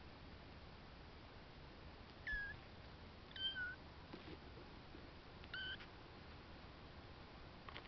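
Blue point mitted Ragdoll kitten mewing three times, each a short high-pitched mew, spaced a second or two apart.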